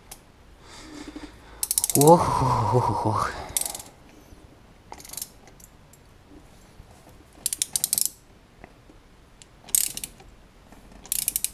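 Ratchet wrench clicking in about five short bursts of rapid clicks as it is worked back and forth, turning a tap that cuts new thread into the stripped spark plug hole of a VAZ 2109 cylinder head. A man's drawn-out "oh-oh-oh" comes about two seconds in.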